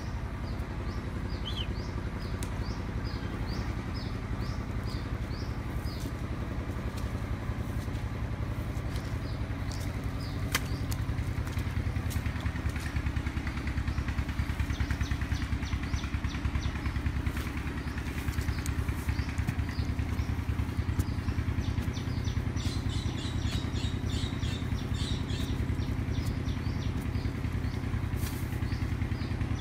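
A small engine running steadily, a low even drone with a fast pulse, with many short high bird chirps over it, thickest near the end.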